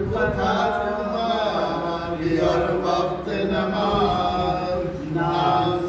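A man's voice chanting an Urdu marsiya, a mourning elegy for Muharram, in a slow melody of long held notes.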